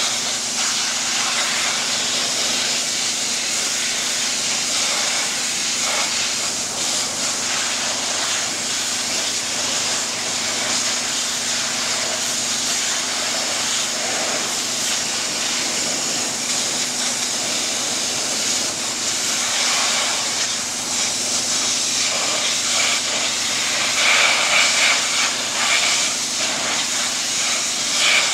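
Densin high-pressure washer spraying a jet of water against steel grating: a steady hiss of spray with a faint steady hum underneath. The spray grows louder and harsher near the end.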